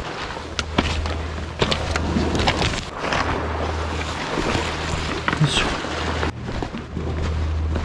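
Wind rumbling on the microphone over waves washing on a stony shore, with scattered sharp clacks of footsteps on loose flat stones.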